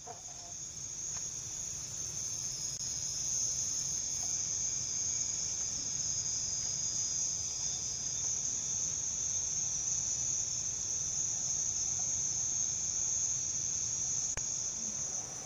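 Chorus of night insects: a steady, high-pitched trill that swells in over the first few seconds, with a faint low rumble beneath.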